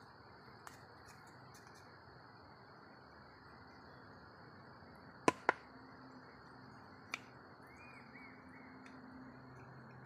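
Steady high-pitched insect drone, cricket or cicada, over a low hum. About five seconds in a hand tool gives two sharp clicks close together against the plastic bowl or honeycomb, and one more about two seconds later.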